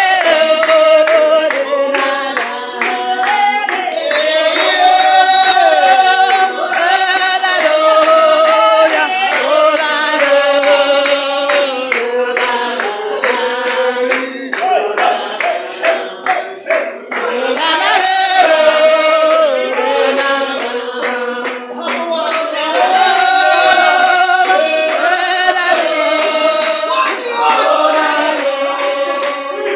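Spiritual Baptist congregation singing a hymn together, with hand clapping in a steady beat.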